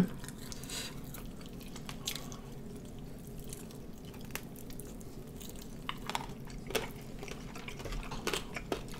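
Faint chewing and mouth sounds of people eating sauced chicken wings off the bone: scattered small wet clicks and smacks over a low, steady room hum.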